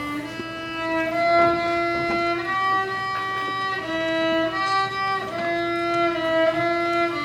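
Solo violin playing a slow melody of held notes that move step by step.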